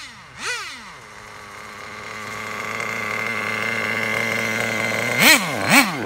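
Nitro two-stroke engine of a Traxxas Jato 3.3 RC drag car. There is a quick throttle blip about half a second in, then a steady, high engine note that grows louder for about four seconds, then two sharp revs near the end.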